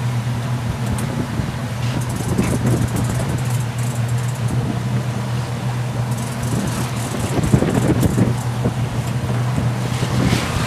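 Fishing boat's engine running with a steady low hum, under wind and water noise on the open sea.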